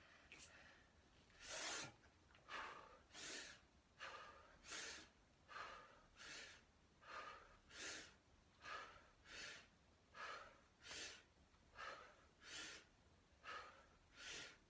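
A man breathing hard and in rhythm while doing push-ups: a sharp, breathy gust about every three-quarters of a second, in time with the reps.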